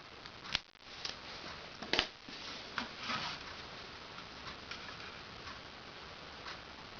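A few sharp clicks and knocks, the loudest about half a second and two seconds in, followed by faint, irregular ticking.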